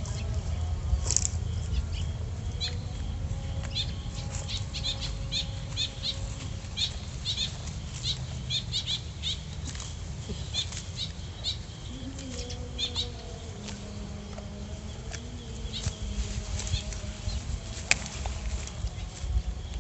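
Wind rumbling and buffeting on the microphone, with many short, high ticks scattered through it in irregular clusters.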